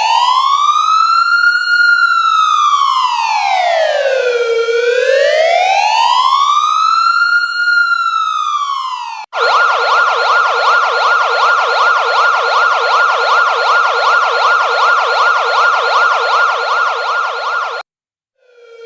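Electronic siren in a slow wail, rising and falling about twice over nine seconds, then switching suddenly to a fast yelp for about eight seconds. It cuts out briefly near the end and the slow wail starts up again.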